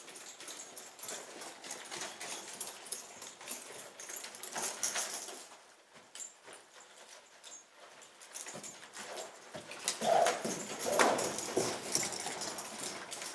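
A horse moving around a sand-floored arena, its hooves thudding irregularly on the sand, with a louder, unclear burst of sound about ten seconds in.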